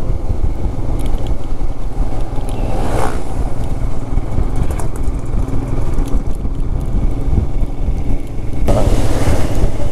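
Royal Enfield Himalayan motorcycle's single-cylinder engine running steadily while riding, with a louder rush of noise near the end.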